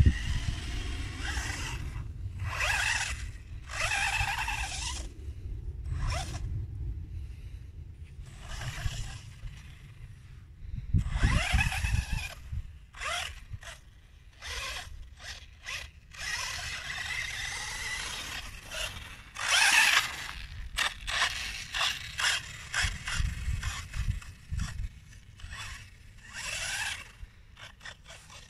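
Radio-controlled buggy driving on a sandy dirt track, its motor and tyres heard in repeated short bursts of rough, scraping noise.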